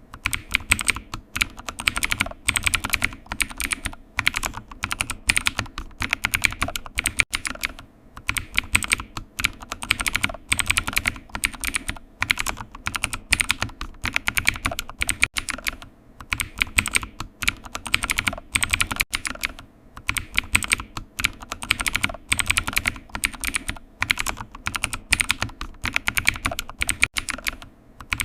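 Typing on a computer keyboard: rapid key clicks in runs of a second or two, with short pauses between them.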